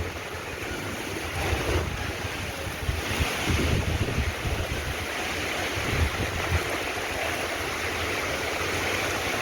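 Heavy rain falling in a strong wind, a steady hiss with irregular low gusts of wind buffeting the microphone.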